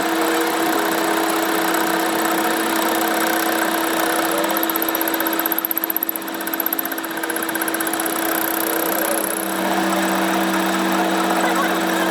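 A motor-driven workshop machine running steadily, with a constant hum and a noisy whirr. About halfway through it briefly dips and pulses, then settles back to a steady run.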